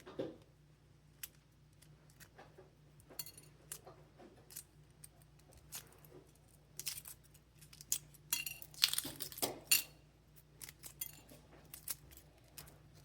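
A boiled egg's shell being tapped and cracked against a dish and peeled by hand: a string of small irregular clicks and clinks, busiest about eight to ten seconds in.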